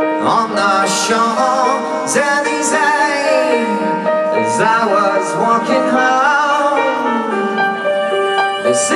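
A rock band playing live through a festival PA, a lead singer's voice wavering over held instrument notes, heard from within the audience.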